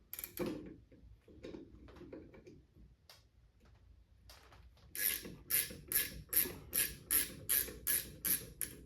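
Ratchet wrench with a 14 mm socket clicking steadily, about three clicks a second, as it works a rear shock absorber nut loose. Faint handling sounds come first, and the clicking starts about five seconds in.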